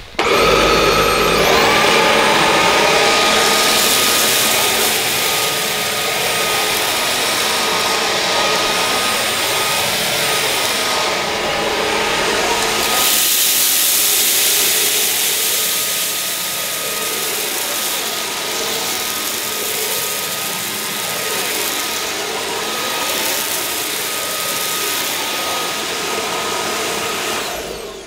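Roidmi S1S cordless stick vacuum switching on with a rising motor whine, then running steadily with a constant whine as it sucks porridge oats and rice off a wiry carpet. The sound grows brighter about halfway through, and the vacuum cuts off near the end.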